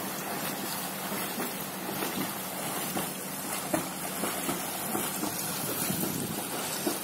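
Water splashing from a swimmer's kicking feet in a swimming pool, over a steady rushing hiss, with small faint splashes scattered through it.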